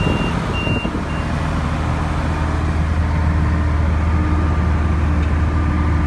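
Tractor engine running steadily while pulling a Case IH round baler, heard from inside the cab as a steady low drone. A high electronic beeper pulses about two to three times a second and stops about a second in.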